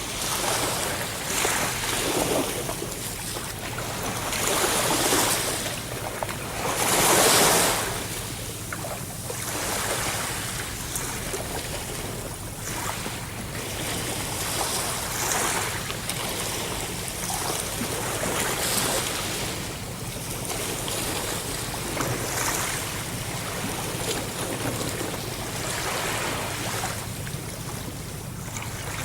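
Ocean waves washing onto the shore in a steady wash, swelling and receding every few seconds, with the loudest surge about seven seconds in.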